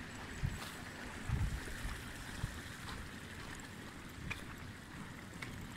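Footsteps on a grassy path, with grass brushing against legs, over a steady hiss. The thudding steps come irregularly and are loudest about a second and a half in.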